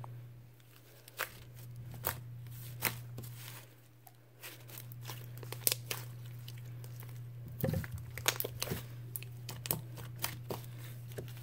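Glossy white slime, thinned with baby oil, squished, stretched and poked by hand, giving scattered small clicks and pops that come more often in the last few seconds.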